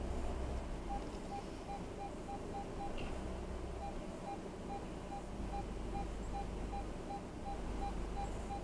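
Car's reversing parking-sensor beeper: short, evenly spaced high beeps about four to five a second, stopping for about a second near the middle and then starting again, as the car backs up toward an obstacle. A low, steady engine hum runs underneath.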